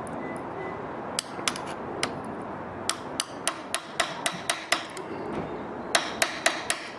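Torque wrench working bolts down on a screw compressor casing: a series of sharp metallic clicks, about four a second in short runs, as the bolts are tightened to 18 foot-pounds.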